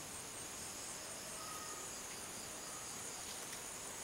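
Rainforest insects keeping up a steady, high-pitched chorus of continuous trills, one of them pulsing rapidly. A brief faint whistle comes about a second and a half in.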